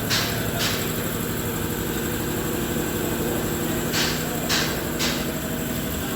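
Steady mechanical hum, broken by short sharp sounds in two groups of three about half a second apart: one group at the start, another about four seconds in.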